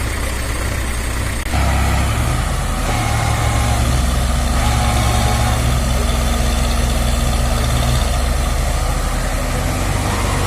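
Heavy diesel engine of a tractor or road roller running steadily, getting louder and deeper about a second and a half in.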